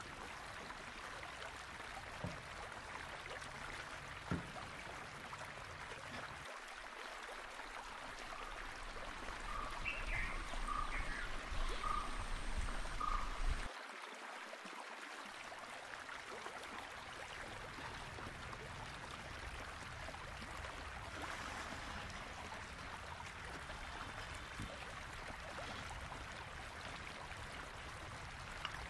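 Steady rushing of a nearby stream, with a few short calls repeating in the middle.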